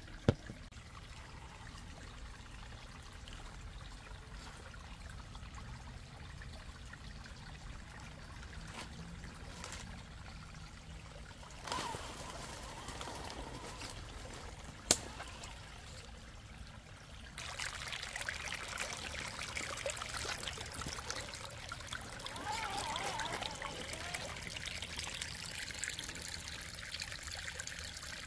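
Shallow creek water trickling over rocks, growing louder about two-thirds of the way through. A single sharp click cuts through it about halfway.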